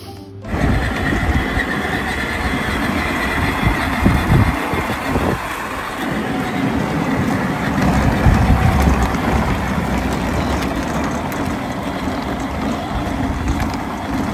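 Battery-powered ride-on toy car rolling along a paved road: a steady noisy hiss over an uneven low rumble.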